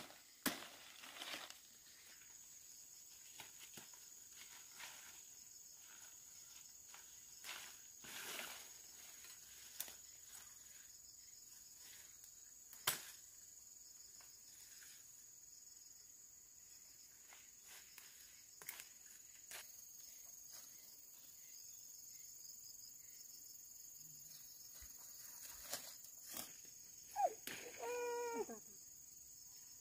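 Faint steady chirring of insects, with scattered snaps, clicks and rustles as branches of mac khen fruit are cut with a long knife and handled, and feet move through undergrowth. Near the end a baby starts to whimper.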